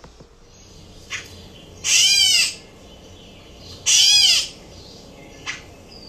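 Recorded gray catbird mew calls: two cat-like meowing calls about two seconds apart, each about half a second long and rising then falling in pitch.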